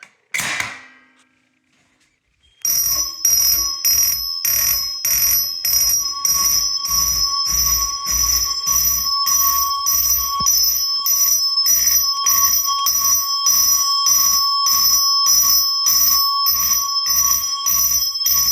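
Simplex mechanical fire alarm chime sounding in march time, struck evenly about twice a second, with its bright tone ringing on between strokes. It starts a couple of seconds in, after a brief clunk, and is the fire panel's alarm signal after a pull station has been activated.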